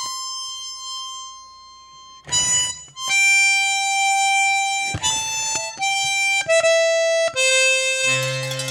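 Accordion (sanfona) playing a slow melody of long held single notes, with short noisy bursts between some of them. A low bass note joins about eight seconds in.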